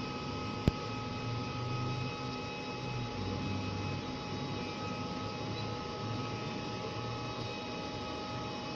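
Hot-air BGA rework station running, a steady whir of its blower and fans with a few faint whining tones and a low wavering hum. A single sharp click comes under a second in.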